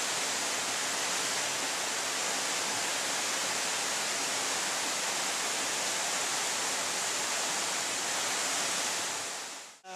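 Steady rushing hiss of a waterfall's falling water, fading out just before the end.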